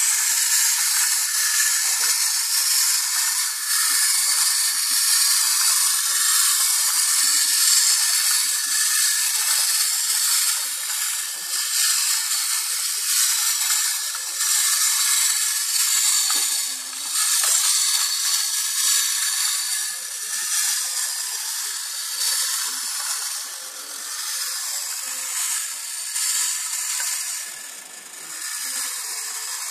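Clockwork wind-up mechanism of a tin Boba Fett toy running: a steady high whir that slowly weakens over the last few seconds as the spring runs down.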